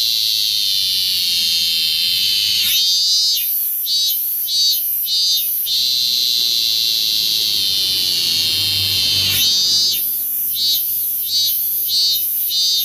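Cicada calling: a loud, steady, shrill buzz that twice sweeps upward into a run of pulses, about two a second, before settling back into the steady drone.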